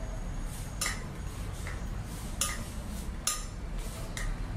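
A metal spoon clinking against a glass mixing bowl about once a second, each knock briefly ringing, as it folds bread dough over itself.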